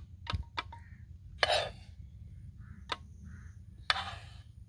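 A metal spoon scraping and clinking in a pan as roasted gram flour (besan) is scooped out: a few sharp clinks and short scrapes, the loudest about a second and a half in and again near four seconds.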